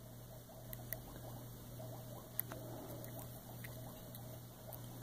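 Land hermit crab making faint little clicky chirps, repeating unevenly, with a couple of sharper clicks about one and two and a half seconds in.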